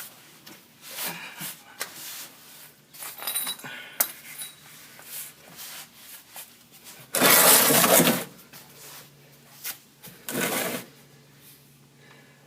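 Scattered metallic clinks and knocks of a socket wrench working the oil drain plug loose over an oil pan. Two louder rushing noises come through, one about a second long roughly seven seconds in and a shorter one about three seconds later.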